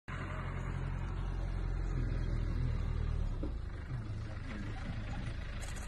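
A vehicle engine idling with a steady low hum, which lessens about three and a half seconds in.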